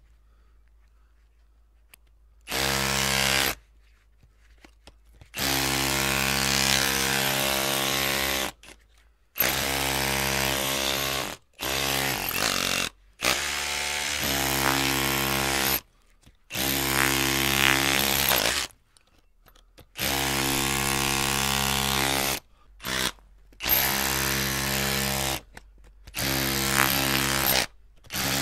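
Electric drill motor run in repeated bursts of one to three seconds, starting about two and a half seconds in and switched on about ten times with short pauses between. The pitch holds steady while it runs.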